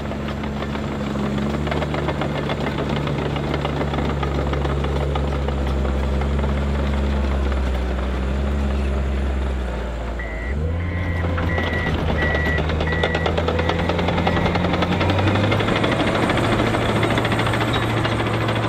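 Komatsu D51EX-22 crawler dozer's diesel engine running steadily under load, with its tracks clattering over crushed limestone. The engine note shifts about halfway through and again later. In the middle, a high beeping alarm sounds about twice a second for a few seconds.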